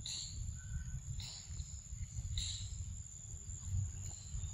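Insects droning steadily at a high pitch, with three louder pulses about a second apart in the first half, over a constant low rumble.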